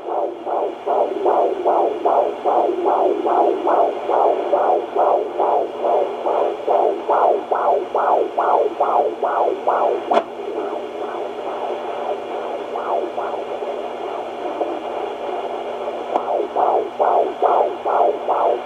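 Fetal heartbeat at 25 weeks through a handheld Doppler monitor: a fast, even whooshing pulse of about two and a half beats a second over a steady hum. About halfway through there is one sharp click, and the beat then fades for several seconds before coming back strongly near the end.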